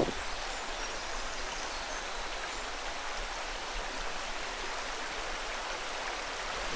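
Steady, even rushing noise with no separate sounds in it.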